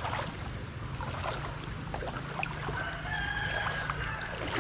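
A rooster crows once, about three seconds in, a held call lasting about a second, over a steady low hum.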